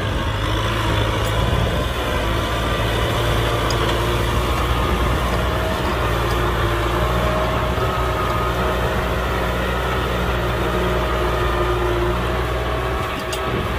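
Kubota M6040 SU tractor's diesel engine running at a steady speed.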